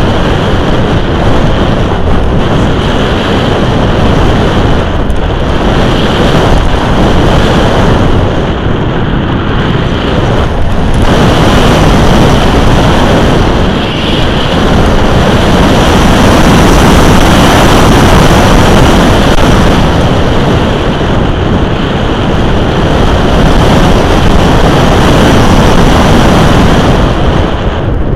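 Loud wind rush from air streaming past the onboard camera of a radio-controlled glider in flight. The noise stays steady, dipping briefly a couple of times.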